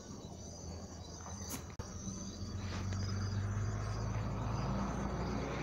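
Faint background: a steady high chirring of insects with a low hum that grows louder about halfway through, and two sharp clicks about a second and a half in.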